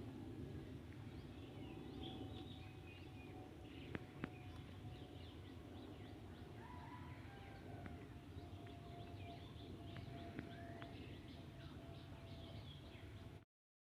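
Birds chirping, many short calls over a steady low outdoor rumble, with two sharp clicks about four seconds in. The sound cuts off abruptly just before the end.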